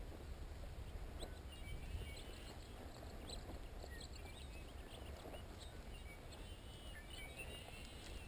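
Low wind rumble on a body-worn camera's microphone and rustling steps through field cover, with faint short bird chirps now and then.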